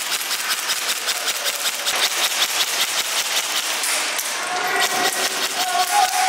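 Airsoft guns firing in rapid, continuous bursts, a dense run of quick clicks throughout; a held call, like a distant shout, comes in near the end.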